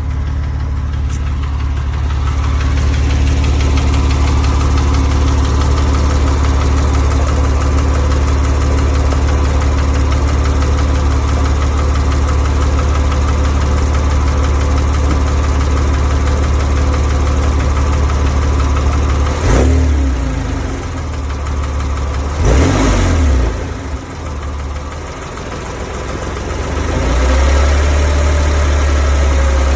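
Porsche 911 997.1's M97 flat-six engine running steadily at idle, with a noise the owner suspects may be bore scoring. About two-thirds of the way through the sound changes abruptly a couple of times and drops in level before it settles back to a steady run near the end.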